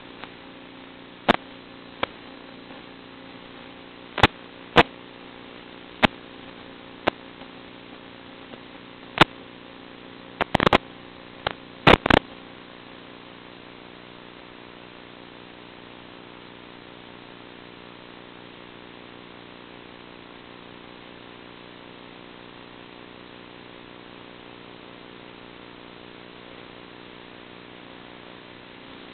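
Steady electrical hum and hiss on the FPV video link's audio feed, with about a dozen sharp static pops in the first twelve seconds, then steady hum alone.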